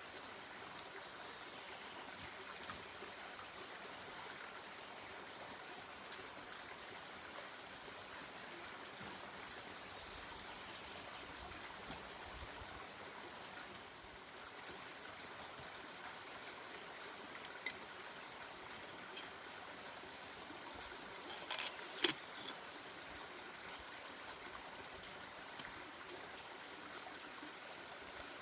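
Steady, even hiss of water, with a brief cluster of sharp clicks or knocks about 21 seconds in.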